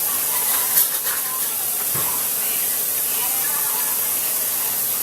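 Steady hiss of food sizzling in a frying pan, with one short click a little under a second in.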